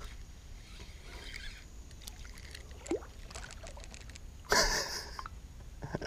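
Faint water sloshing over a low steady rumble, with a short, louder splash-like burst about four and a half seconds in.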